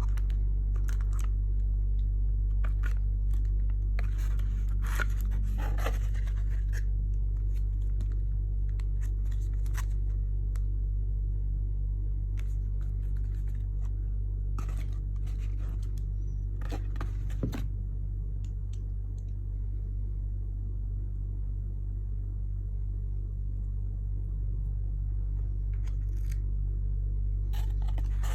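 Beyblade packaging being handled and opened: scattered rustles, clicks and scrapes of plastic and cardboard, busiest a few seconds in and again past the middle. Under it all runs a steady low electrical hum.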